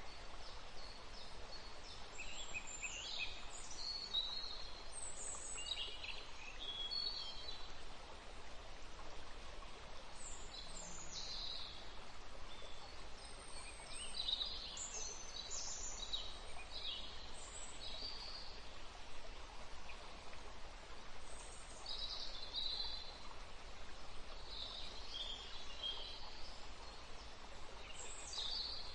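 Birds chirping, with many short calls scattered through, over a steady background hiss.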